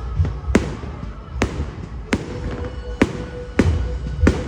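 Fireworks display: six sharp bangs of aerial shells bursting, roughly one every three-quarters of a second, over a steady low rumble.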